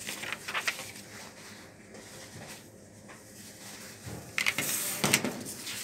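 Sheets of paper being handled and shuffled on a desk: a few sharp crinkling clicks in the first second, then a louder rustle of paper about four seconds in.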